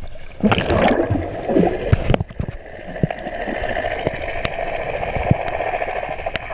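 Underwater recording of a diver going down: bubbling, gurgling water rushes around the camera for about a second and a half, starting about half a second in. A steady underwater drone with scattered sharp clicks follows.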